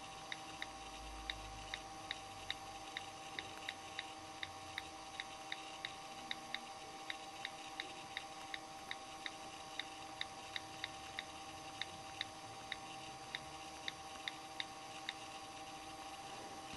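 iPhone 4 on-screen keyboard clicking with each keypress while a message is typed, short high ticks about three a second at an uneven typing pace, over a faint steady hum.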